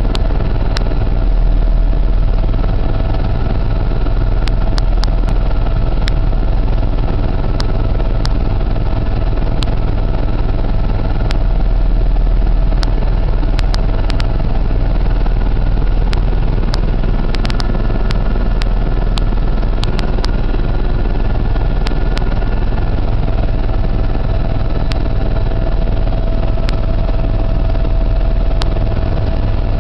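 Steady engine drone heard inside the cabin of a small sightseeing aircraft in flight, with a heavy low rumble and a constant mid-pitched hum.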